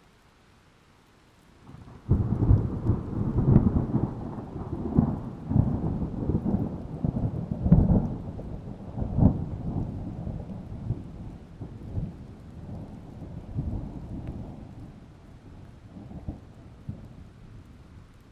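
Thunder: a sudden clap about two seconds in, then a long rolling rumble with several sharper cracks that slowly dies away.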